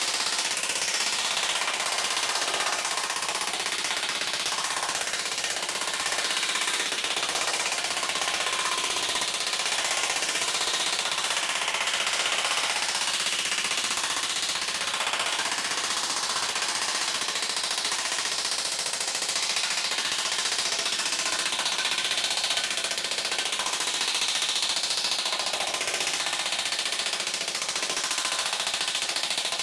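Pneumatic air hammer with a round forming head hammering rapidly and continuously on a thin copper sheet over a sandbag, as the metal is flow-formed into domes.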